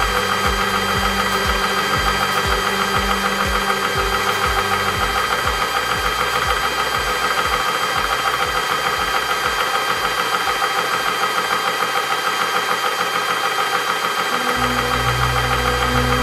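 TOPA 12-volt 300-bar PCP air compressor running while filling a 0.25 L air tank. A steady motor and cooling-fan whine sits over a low rhythmic piston knock, and the knock weakens about a third of the way in.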